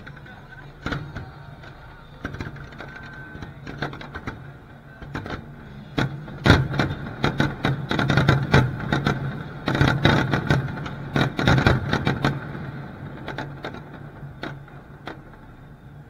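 Aerial fireworks going off: scattered bangs and crackles at first, then a dense barrage of rapid reports from about six seconds in that lasts some six seconds before thinning out again.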